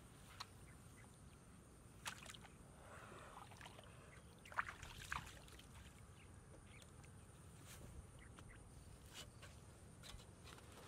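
Quiet outdoor ambience with a few faint, brief sounds: a sharp one about two seconds in and a couple more around the middle, from hands working in shallow muddy water among grass.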